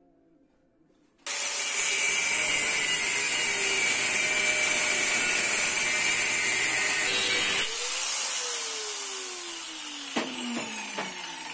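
An electric power tool starts abruptly about a second in and runs loud and steady with a hissing whine. It is switched off about three-quarters of the way through and winds down with a falling whine. A few sharp knocks come near the end.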